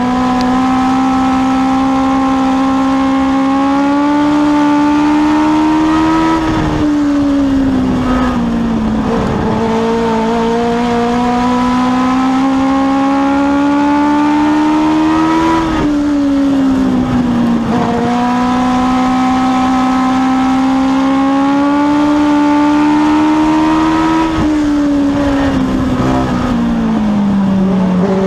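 A Legends race car's Yamaha motorcycle engine at racing speed, heard from inside the cockpit. The engine note climbs steadily down each straight, then drops sharply as the driver lifts for the turn and picks back up, three times over.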